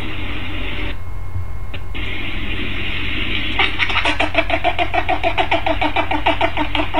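Pufferfish held out of water making a rapid croaking sound, about eight pulses a second, starting about three and a half seconds in. A steady hiss runs under it.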